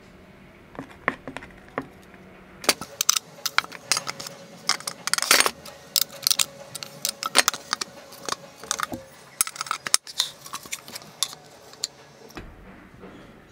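Small metal hardware clinking and rattling in the hands as V-wheels, screws and spacers are fitted to a plywood plate. It is a run of sharp clicks and jingles, a few at first, then a thick flurry from about three seconds in until near the end.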